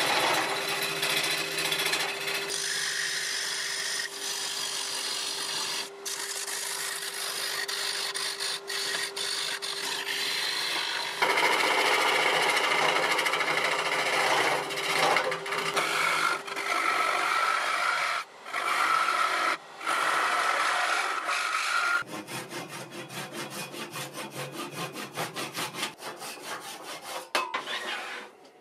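A wood lathe turning a spalted ash bowl while a gouge cuts the outside and foot: a continuous scraping, shaving noise with a steady hum underneath in the first half. The noise gets louder about a third of the way in and breaks off briefly a few times as the tool lifts from the wood. For the last several seconds it changes to a quicker pulsing scrape.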